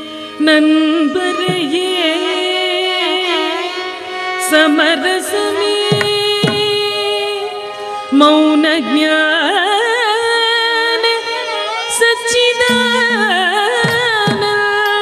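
Carnatic music of a dance varnam in raga Todi: a melody with heavily ornamented, sliding notes over a steady drone, with a few sharp percussion strokes.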